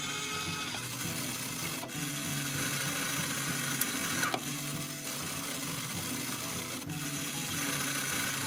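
Toy claw machine's small electric motor whirring steadily as the claw is moved around, with a few sharp clicks and a simple tune playing underneath.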